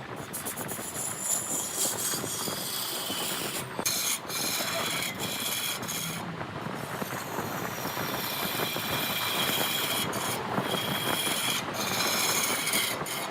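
Large wood lathe turning a redwood log, a cutting tool scraping into the spinning wood with a steady rasping noise and a high squeal. The noise breaks off briefly a few times.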